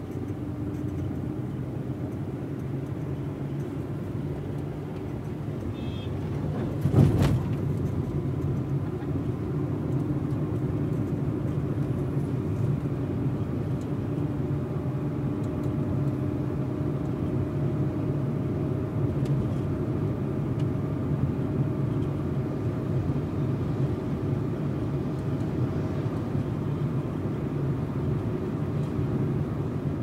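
City street traffic: a steady hum of vehicle engines. A single sharp knock about seven seconds in is the loudest sound.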